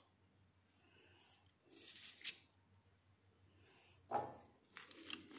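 Faint handling sounds of fresh strawberries being hulled and prepared by hand on a plate: a soft scrape about two seconds in, a short, louder one about four seconds in and a few small ones near the end, otherwise near silence.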